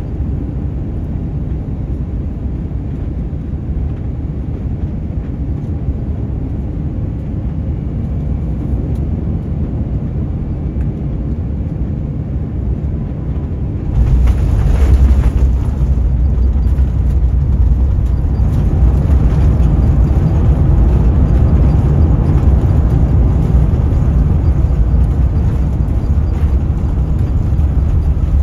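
Cabin noise of a Japan Airlines Airbus A350-900 landing: a steady low rumble on final approach, then about halfway through the wheels touch down and the noise jumps suddenly to a louder, rougher rumble as the plane rolls along the runway.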